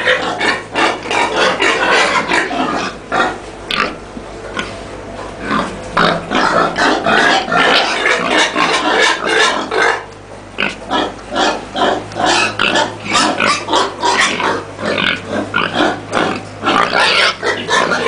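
A pen full of farmed white pigs grunting and calling, many short overlapping calls in a steady din, easing briefly about four and ten seconds in.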